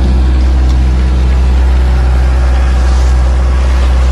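Fishing boat's inboard engine running steadily underway, a constant low drone, with water rushing and splashing along the hull.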